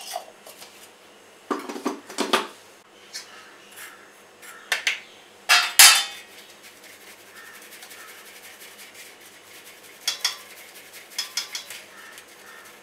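Stainless-steel kitchenware clinking and knocking: a mixer-grinder jar is lidded and set down and a bowl is moved about on a steel plate, in several separate bursts of clatter. The loudest knock comes about six seconds in, and a quick run of light clicks follows near the end.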